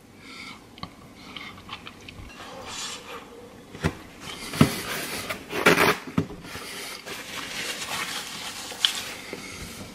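Someone eating: chewing with a few short knocks and clatters, then a paper napkin rustling as it is pressed to the mouth.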